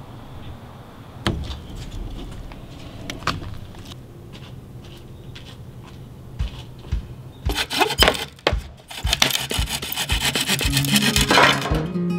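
Scattered light knocks, then from about seven seconds in, quick rhythmic rasping strokes of a hand tool working a wooden board, about three strokes a second. Acoustic guitar music begins near the end.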